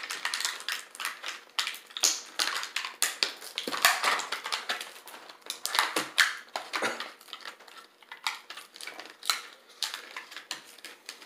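Plastic compartment tray of a Death Nut Challenge pack crackling and clicking as fingers pry and peel it open to get a nut out, in quick irregular snaps that thin out toward the end.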